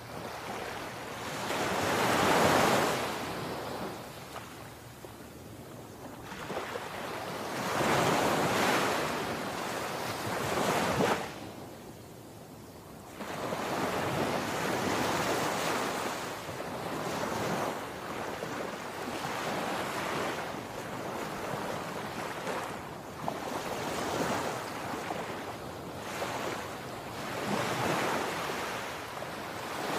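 Sea surf breaking on a sandy beach: waves crash and wash up the shore in swells every few seconds, with the loudest breaks near the start and about eight to eleven seconds in, then a steadier rush of water.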